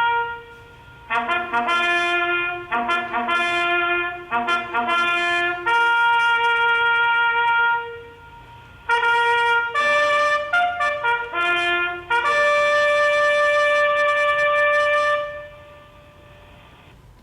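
Solo trumpet playing a bugle call on the open notes of the horn, mixing quick repeated note figures with long held notes and ending on one long held high note.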